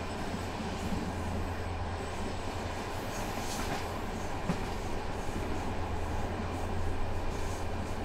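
Moving passenger train heard from inside the carriage: a steady low rumble and hum of the running gear on the rails, with a few faint clicks and rattles.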